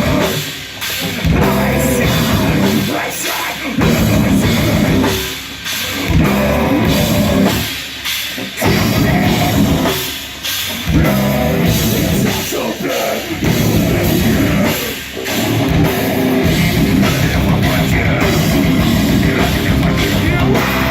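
Heavy metal band playing live, with a pounding drum kit and heavy guitars. The riff stops and starts, with short breaks every couple of seconds for about the first fifteen seconds, then runs on steadily.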